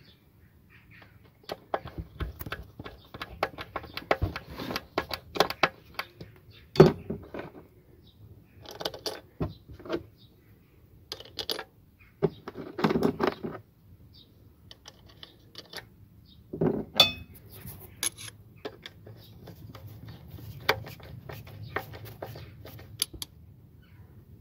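Hand tools and small metal parts clinking, tapping and clattering against the engine's metal parts: irregular sharp clicks in clusters, with a few louder knocks about 7, 13 and 17 seconds in.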